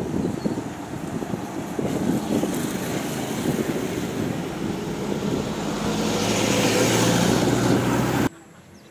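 Wind rushing over the microphone while riding a bicycle along a road, with a motor vehicle's engine growing steadily louder over the last few seconds as it draws near. The sound cuts off abruptly near the end.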